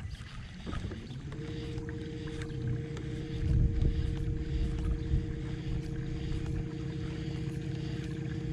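Kayak electric trolling motor humming at a steady pitch, setting in about a second in, over a low rumble that swells for a moment a few seconds in.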